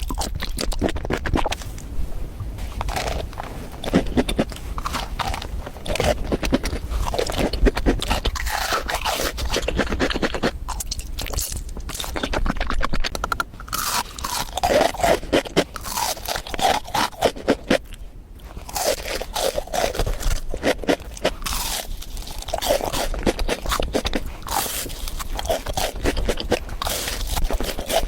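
Close-miked crunching and chewing of crisp food: dense, rapid crackles and bites with wet mouth sounds in between.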